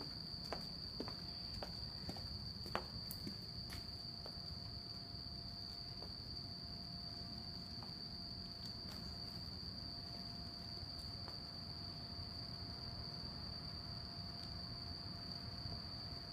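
Insects singing steadily at night: one continuous high-pitched chirring tone, with a few faint ticks in the first few seconds.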